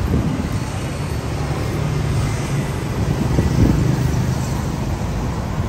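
Steady street traffic: motorbike engines running and passing, a little louder about three and a half seconds in.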